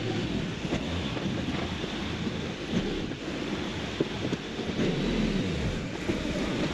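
Bobcat CT2040 compact tractor's diesel engine running as the tractor moves back and forth, dragging a box blade over a dirt driveway to grade it. Wind on the microphone is mixed in.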